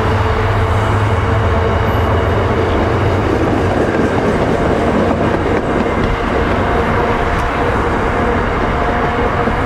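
MBTA Commuter Rail bilevel coaches rolling slowly past on the rails, a steady rumble of wheels and running gear. A low rumble is strongest at first and eases after about three seconds as the last cars go by.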